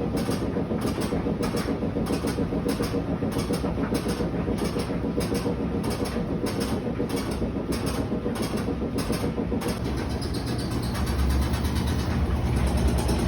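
Whirlpool top-load washing machine on its spin cycle, running with a steady mechanical rumble and a regular, rapid knocking. About ten seconds in the knocking stops and a deeper, louder rumble takes over.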